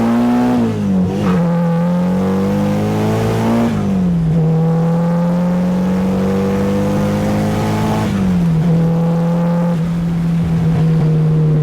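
Nissan 240SX's turbocharged SR20DET four-cylinder engine pulling under acceleration on a road test. Its pitch climbs, then drops at upshifts about a second, about four seconds and about eight seconds in, and afterwards holds nearly steady.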